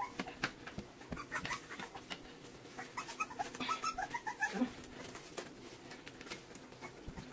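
Young puppies lapping and smacking at wet mush in a stainless steel puppy saucer, with many small wet clicks, and a run of short high squeaks from a puppy about three to four and a half seconds in.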